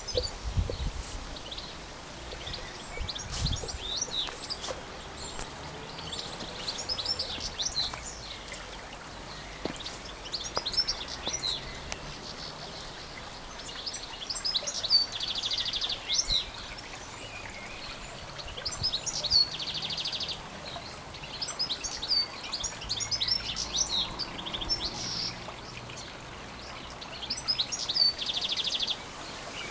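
Several songbirds singing and chirping in short repeated phrases, with a buzzy trill three times, over the steady wash of a shallow garden stream.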